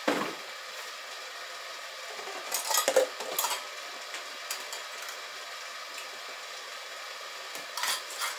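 A few short bouts of clinking and clattering of dishes or utensils over a steady hiss from a kettle popcorn machine warming up.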